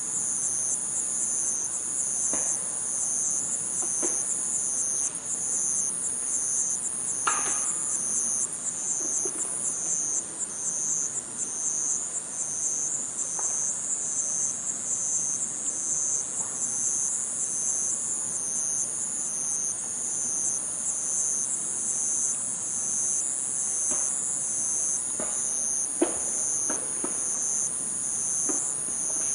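Steady high-pitched chorus of chirring insects with an even pulsing rhythm, broken by sudden knocks from an unseen source close by: about ten short, sharp knocks at irregular intervals, a ringing one about seven seconds in and the sharpest near the end.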